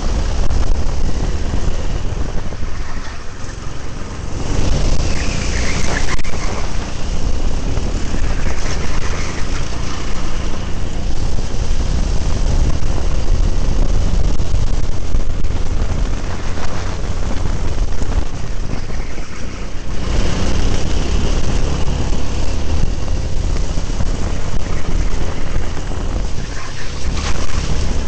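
Go-kart engine running at race pace, heard from an onboard camera on the kart, with wind noise buffeting the microphone. The engine sound drops off twice, about three seconds in and again near the twentieth second, then builds back up.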